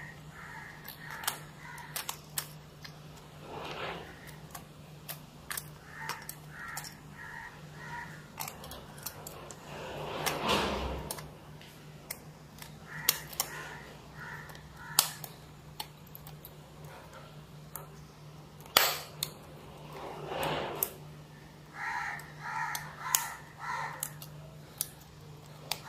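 Scattered small clicks and taps of a Nokia Lumia 520's parts being handled and pressed into place as its motherboard is fitted back in, a few soft rustles among them, over a steady low hum.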